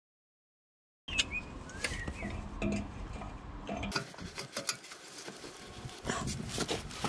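Silent for about the first second, then a string of short clicks and metallic taps from a wrench and pliers being worked on a rusted exhaust oxygen sensor, with small birds chirping in the background.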